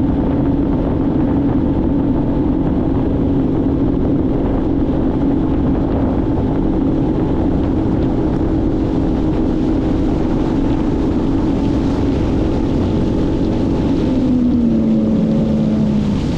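Sea-Doo GTX 170 personal watercraft running under way, its engine holding a steady note over a haze of water and wind noise. About two seconds before the end, the engine note drops lower.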